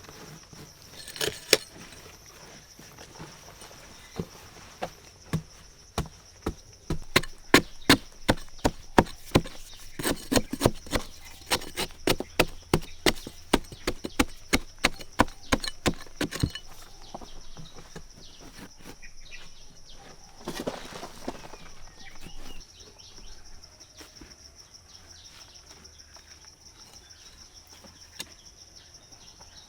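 Wood being chopped with a steady run of sharp chops, two to three a second, that stops about halfway through. A shorter rustle follows, and a steady high buzz of insects runs underneath.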